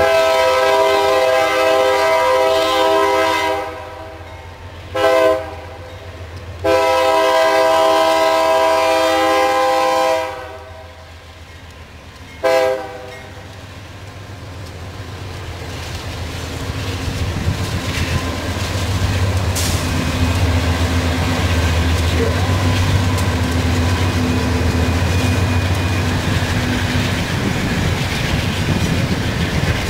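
Air horn of a CSX diesel freight locomotive sounding several notes at once: a long blast, a short one, a second long blast and a brief toot, as a warning at the grade crossing. Then the locomotives' diesel engines and the wheels on the rails rumble steadily, growing louder as the units pass close by.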